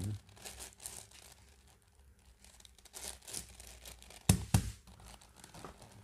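Plastic layers of a 10x10x10 Rubik's cube clicking and scraping as they are turned by hand, with two louder knocks about four seconds in.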